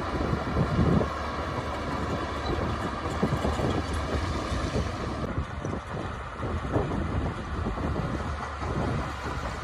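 Heavy diesel earthmoving machinery running steadily at a work site, a continuous low engine rumble with rough, uneven texture.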